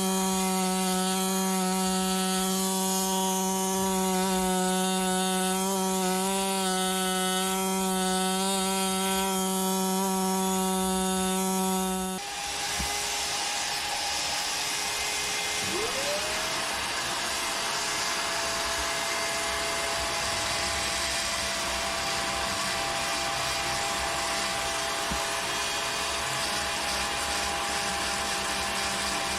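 Power tools working a fossil during preparation. A steady pitched buzz runs for about twelve seconds, then changes abruptly. A few seconds later a motor winds up into a steady whine over a rougher noise.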